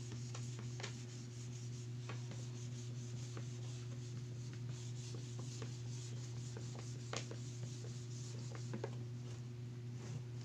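Whiteboard being wiped clean by hand, a faint scratchy rubbing over the board with a few small taps, over a steady low hum.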